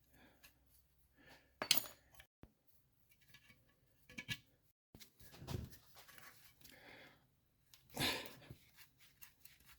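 Sporadic clicks, clinks and scrapes of hand tools working on a small Tomos moped engine during strip-down. There are a few sharp taps and two longer, scratchier stretches in between.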